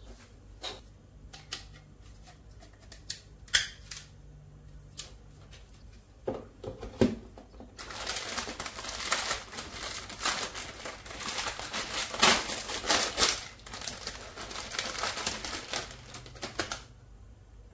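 Hard plastic parts clicking and tapping as they are handled, then thin plastic packaging crinkling and rustling from about eight seconds in until near the end.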